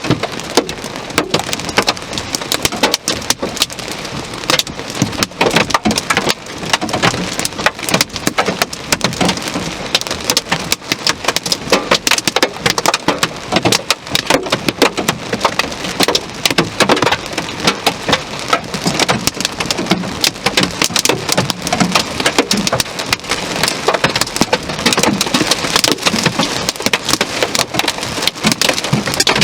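Heavy thunderstorm rain pounding down, a dense, unbroken clatter of drops striking a hard surface.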